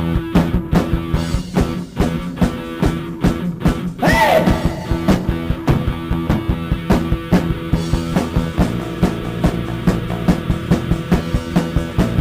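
Rock band playing an instrumental passage with drums, bass and guitar at a steady driving beat, with a single shouted "Hey!" about four seconds in.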